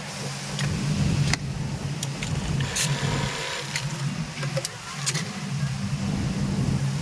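Garment-factory sewing machine running: a continuous low motor hum that rises and dips, with a few sharp clicks.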